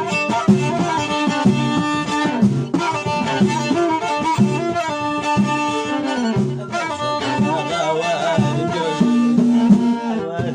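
Instrumental passage led by a bowed violin playing a fast stepping melody, with other instruments accompanying.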